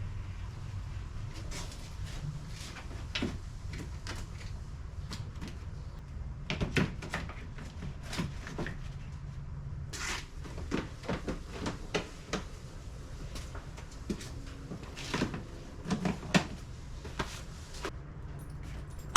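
Irregular clicks, clanks and knocks of tools and parts being handled under the hood, over a steady low hum, ending in one loud knock.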